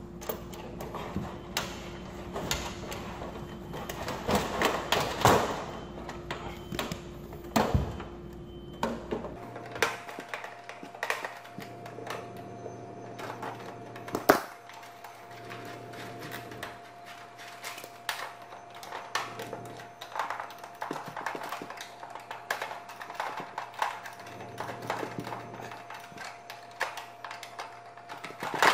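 Sheet-metal clicks, taps and rattles from the housing of an electric baseboard heater being handled and worked with a screwdriver, irregular throughout, with a sharp knock about fourteen seconds in.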